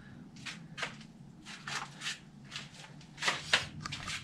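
Quiet, irregular scuffs and rustles, about three a second and loudest a little after three seconds in, from a person moving about with a handheld camera: footsteps and handling noise. A faint low hum lies underneath.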